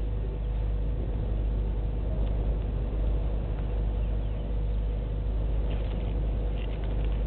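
Steady outdoor background rumble and hiss with a constant faint hum, and a few faint, short, high chirps near the end.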